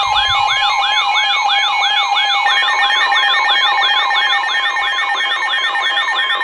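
Electronic emergency alert tone: rapid rising-and-falling swoops, about three a second, over a steady electronic tone, with a higher layer joining about two and a half seconds in. It announces a tornado warning.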